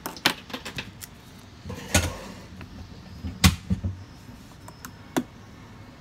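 Irregular sharp clicks and taps of small screws and a precision screwdriver being handled on an opened smartphone and its repair mat, the loudest about three and a half seconds in.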